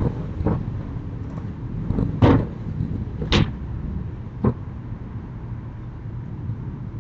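Sliding storm shutters (amado) on a house's upper floor being moved and shut: four short knocks and clatters, the loudest two about two and three and a half seconds in, over a steady low rumble.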